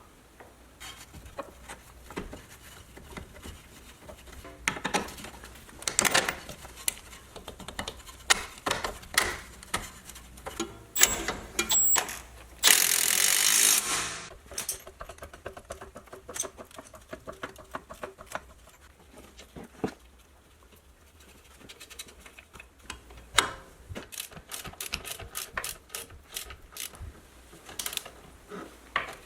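Hand tools at work on a car's front suspension: irregular metal clicks and knocks, a dense noisy burst lasting about a second and a half near the middle, and runs of rapid clicking near the end.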